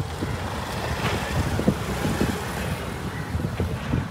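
Wind buffeting the microphone, with the low rumble of road traffic behind it.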